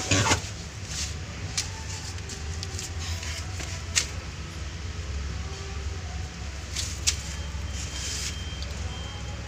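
A steady low vehicle rumble with a few sharp clicks and knocks scattered through it.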